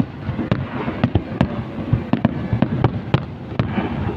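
Fireworks going off in quick succession: many sharp bangs and pops at an irregular rate of several a second, over a continuous crackling.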